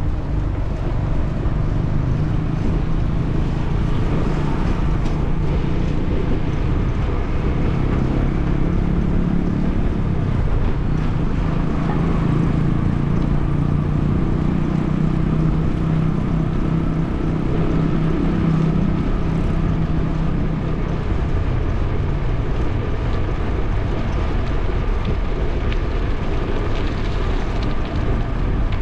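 Rushing wind and road noise on the microphone of a camera riding on a moving bicycle, with street traffic alongside. A steadier hum rises over it for several seconds in the middle.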